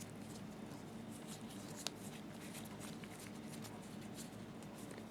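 Faint small clicks and light scraping of a small lock screw being turned into the slit lamp's gear holder by hand, with one sharper tick about two seconds in, over a low steady hum.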